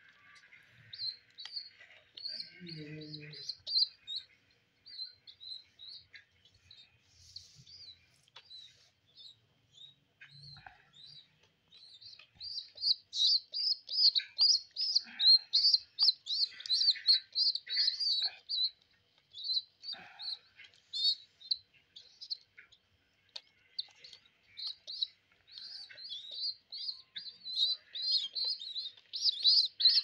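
Baby pigeons (squabs) squeaking with short, high begging calls, several a second, while being hand-fed; the calls come in long runs and get louder about halfway through.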